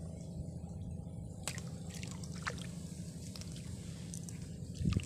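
A hooked fish splashing and plopping at the water surface as it fights a float-rod line: scattered small splashes and drips starting about a second and a half in, growing heavier near the end, over a steady low rumble.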